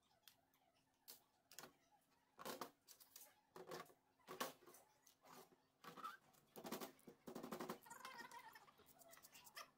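Faint clicks and knocks of hand tools on metal during engine disassembly, irregular and denser in the middle, with a quick run of clicks near the end.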